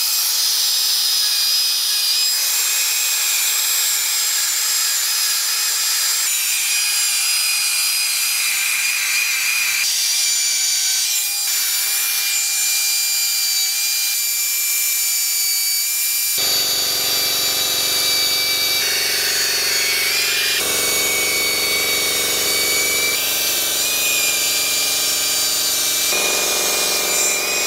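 Handheld rotary power tool deburring the machined edges of an engine block: a steady high-pitched whine over a scraping hiss. It comes in a run of short clips that cut abruptly from one to the next.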